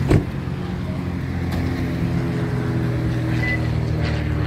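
Car engine idling steadily, with a short sharp knock near the start.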